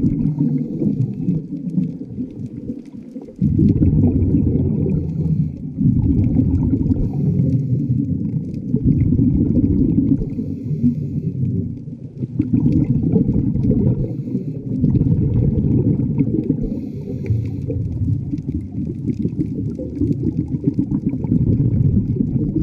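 Underwater water noise: a muffled rumble that swells and eases every few seconds, with a faint hiss above it at times.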